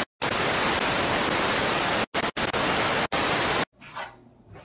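TV static sound effect: a steady hiss of white noise that cuts out for split seconds a few times and stops about three and a half seconds in, leaving only faint room sound.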